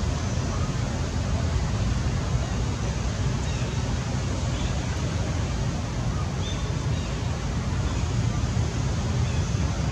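Steady outdoor background noise: a low rumble under an even hiss, with a few faint, short high chirps.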